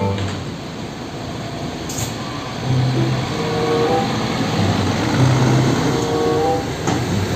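Cement mixer truck engine running steadily, with a soft background melody underneath.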